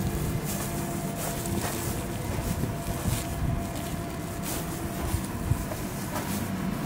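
Footsteps crunching on packed snow over a steady low hum of city background noise.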